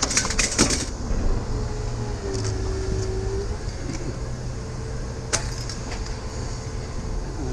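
A vehicle engine running steadily with a low hum and a faint wavering whine. There is a burst of clattering handling noise in the first second and a single sharp click about five seconds in.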